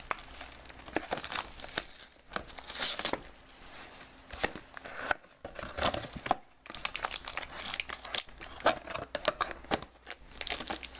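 Plastic wrapping crinkling and tearing as hands open a sealed trading-card box, with irregular crackles throughout.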